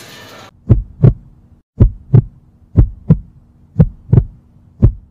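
Heartbeat sound effect: deep paired lub-dub thumps, five beats at about one a second, set in dead silence after the room sound cuts out about half a second in.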